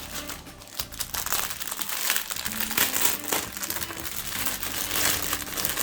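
Small plastic packets of round diamond-painting drills being handled and pulled about, giving a dense, continuous plastic crinkling and crackling.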